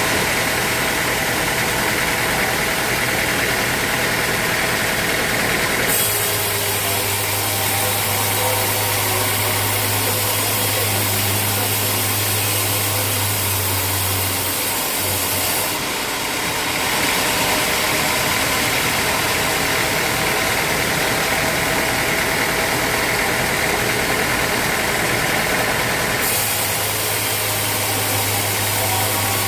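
Sawmill machinery running steadily with a loud, engine-like hum. Its character changes abruptly three times, about every ten seconds.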